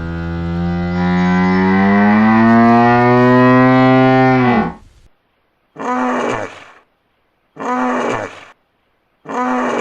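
Hippopotamus calling: one long bellow that rises a little in pitch, then three short honks about two seconds apart.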